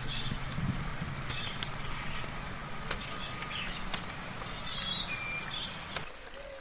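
Steady rain hiss with birds chirping and whistling briefly at intervals, and scattered sharp ticks. A low steady hum sits underneath and cuts off suddenly near the end.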